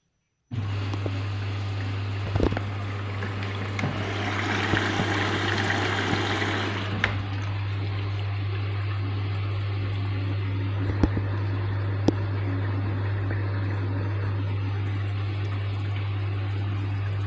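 Washing machine starting up suddenly from silence: a steady low electrical hum with water rushing and trickling through it, loudest for a few seconds in the middle, and a few sharp clicks.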